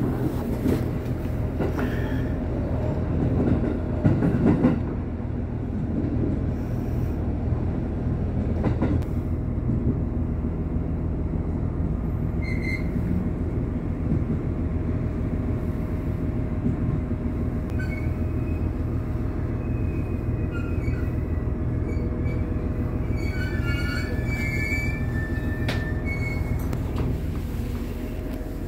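JR East GV-E400 diesel-electric railcar heard from its cab: the diesel engine drones steadily as the wheels knock over a run of points in the first few seconds. In the second half, high metallic squeals come in as the train slows into the station.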